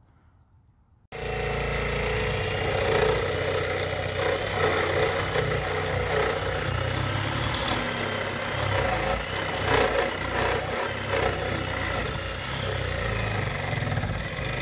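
Reciprocating saw (Sawzall) running continuously, cutting through the nails that fasten the deck to its beams; it starts suddenly about a second in.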